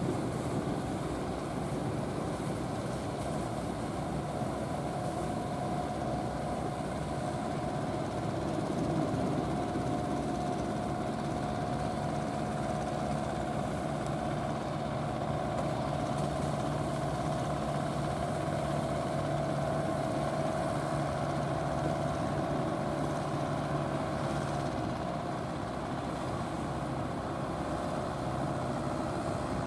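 A fishing boat's engine running steadily under way, holding an even pitch.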